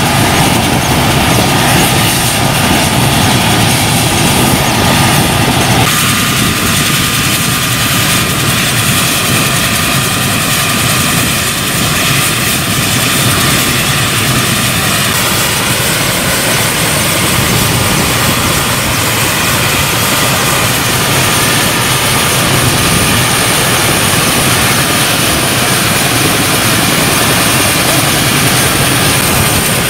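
Indian Air Force Mi-17 helicopter running on the ground, its twin turboshaft engines giving a steady high whine over the loud, even rotor and engine noise.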